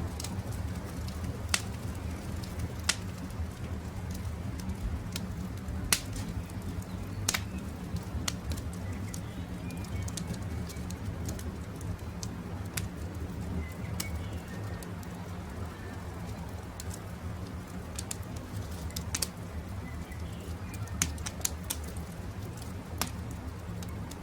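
Wood campfire crackling, with sharp pops at irregular moments over a low steady rumble, and birds calling in the background.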